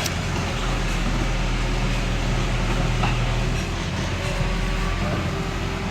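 Heavy diesel earthmoving machine's engine running steadily under load, a low even drone with a couple of faint clicks.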